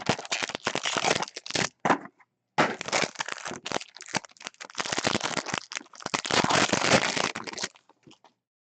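Plastic wrapping on a box of football trading cards and its packs being torn open and crinkled: dense, rapid crackling in two stretches, a short pause about two seconds in, then dying away near the end.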